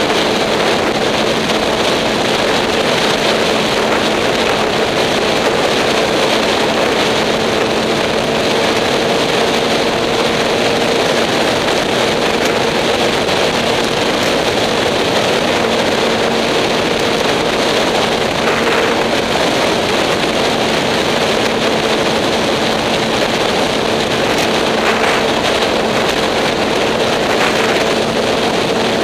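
2008 Yamaha R6's inline-four engine at a steady highway cruise, its hum holding one pitch, under heavy wind rush over a helmet-mounted camera's microphone.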